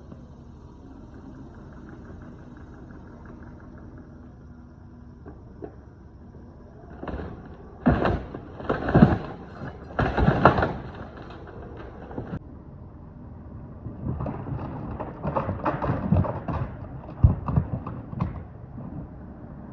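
Mini excavator running at a low, steady hum while tearing down a wooden tool shed, then two spells of loud crashing, cracking and clattering as the shed's boards and framing break and fall, the first about halfway in and the second near the end.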